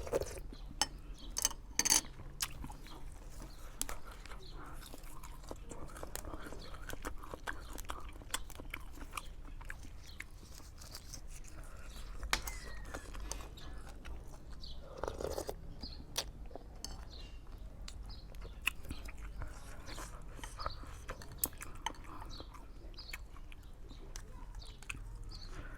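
A person chewing and eating food, with scattered short sharp clicks.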